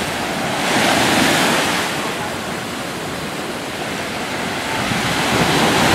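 Ocean surf breaking and washing up the sand at the water's edge, swelling with a breaking wave about a second in and again near the end.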